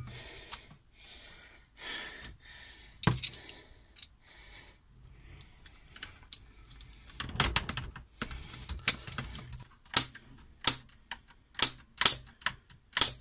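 HPA airsoft engine (a 3D-printed Fauxverine in a G36C) being dry-fired in semi-auto: a run of sharp pneumatic clicks, irregularly spaced, in the second half, after several short hissy bursts. The builder notes a slight semi-auto trigger issue, typical of the G36C.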